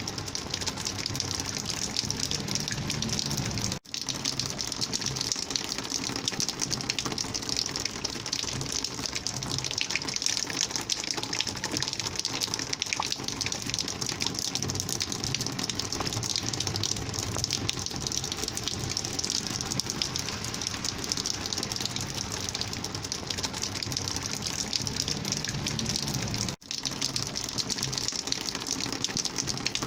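Rainwater flowing and gushing in a steady rush, with two very short gaps, one about four seconds in and one a few seconds before the end.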